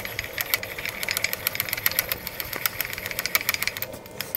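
Rapid, irregular metallic clicking and rattling from a milling vise's moving jaw being worked along its ways after its locking part was refitted. The clicking stops shortly before the end.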